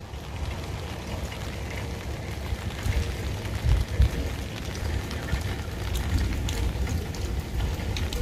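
Wind buffeting the microphone in uneven gusts, a low rumble that swells around the middle, over a steady outdoor hiss with faint scattered ticks.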